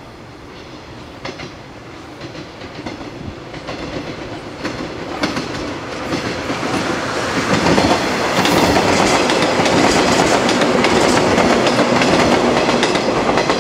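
Electric multiple-unit commuter train approaching and then rolling past close by, its wheels clicking over the rail joints. It grows steadily louder and is loudest from about seven seconds in, as the cars go by.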